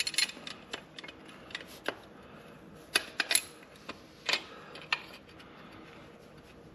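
Hand wrenches clicking and clinking on the chain adjuster's jam nuts of a Kawasaki KLR 650: a dozen or so sharp metallic ticks and knocks at irregular intervals.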